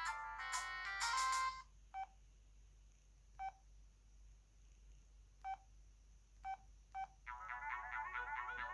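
O2 Ice mobile phone playing a polyphonic ringtone through its small speaker; the melody stops about a second and a half in. Five short keypad beeps follow, spaced out as the next tone is selected, and a new, quicker ringtone melody starts near the end.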